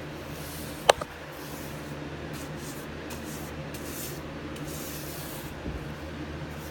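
Paintbrush swishing primer onto bare wood in repeated strokes, roughly one a second, with a sharp click about a second in.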